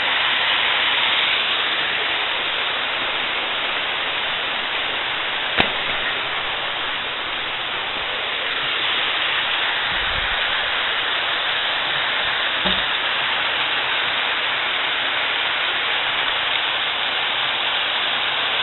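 Steady rush of a small waterfall cascading over rock ledges into a creek pool, with one sharp click partway through.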